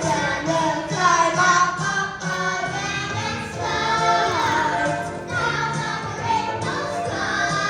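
A group of children singing a song with musical accompaniment.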